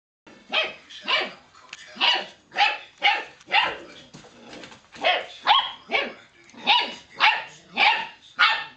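Puppies barking: a dozen or so short, sharp yaps in quick succession, each falling in pitch, in a squabble between two puppies.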